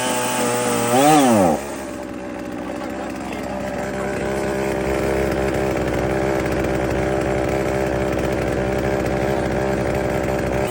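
A new Oleo-Mac semi-professional chainsaw's two-stroke engine running on its first start from cold. It runs at a fast idle, revs up and back down briefly about a second in, then settles into a lower, steady idle as it warms up.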